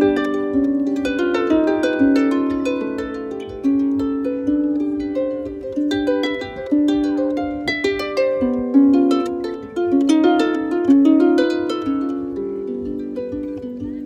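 Lever harp played by hand: a melody of plucked notes that ring and overlap above lower accompanying notes. Near the end the playing thins out and the last notes ring on and fade.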